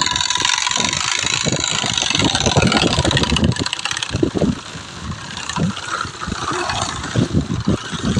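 Homemade bottle silencer on a bicycle, driven by the turning wheel, giving a rapid engine-like rattle like a small motorbike. It weakens about halfway through and then picks up again.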